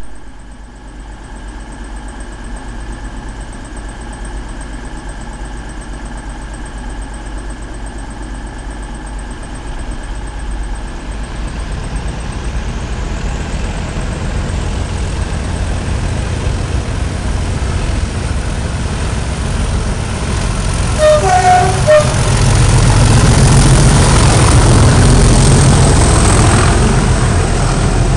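Two Class 37 diesel locomotives with English Electric 12CSVT engines approaching under power and passing close by, their engine rumble growing steadily louder. A short two-note horn sounds about 21 seconds in, just before the loudest part, as the locomotives and then the coaches go by.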